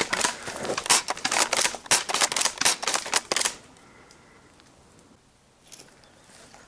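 Fast footsteps crunching through dry leaf litter and undergrowth, a dense irregular run of snaps and rustles that stops about three and a half seconds in.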